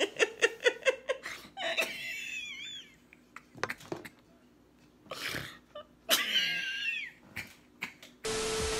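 A woman laughing hard: quick rhythmic bursts of laughter, then high-pitched squeals twice. Near the end a steady hiss starts.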